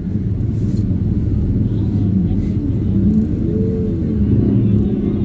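Steady rumble of crowded street traffic, with voices and pitched horn tones rising and falling over it.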